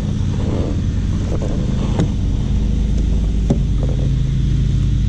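A motor engine running steadily with a low, even hum. Two knocks sound about two and three and a half seconds in.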